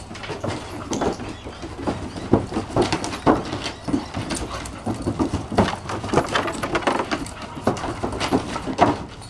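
Several dogs playing and wrestling on a wooden deck, their claws and paws clicking and knocking on the boards in quick, irregular strikes.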